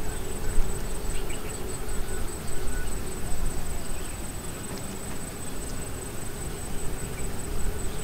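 Insects calling with a continuous high-pitched trill, over a low rumble.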